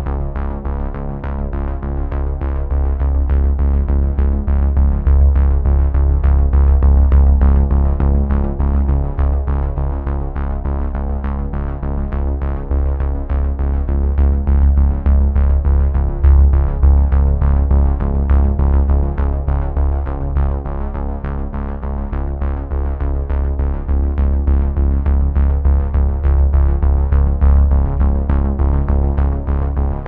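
Background electronic music: held synthesizer chords over heavy bass, with a steady beat.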